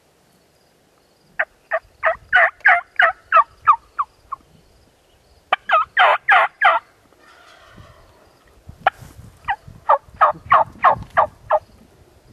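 Turkey yelping: three runs of evenly spaced yelps, about three a second, the middle run of five the shortest and loudest.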